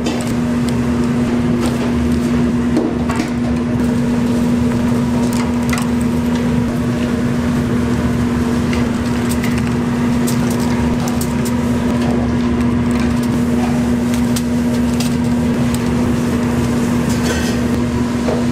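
A machine's motor humming steadily at one pitch, with scattered sharp clacks and knocks over it.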